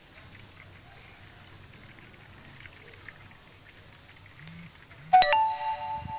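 Faint trickling and lapping of water in an eel tank. About five seconds in, a sudden bell-like ringing tone with several pitches sounds and fades over about a second and a half.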